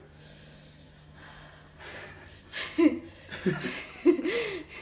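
A man and a woman laughing in short, breathy bursts, starting a little over two seconds in.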